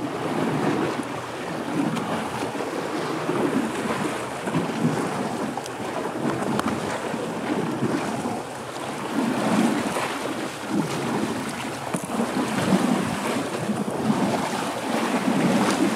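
Water sloshing and splashing around an elephant wading and swimming through deep water, in uneven surges.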